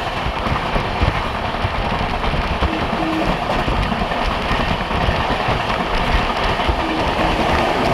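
Express train running at speed: a steady, loud rush of wheel and track noise with no clear rhythm.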